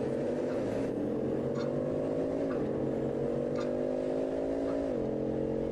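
Koenigsegg supercar engine accelerating through the gears, its note climbing steadily and dropping sharply at an upshift about two and a half seconds in and again near the end.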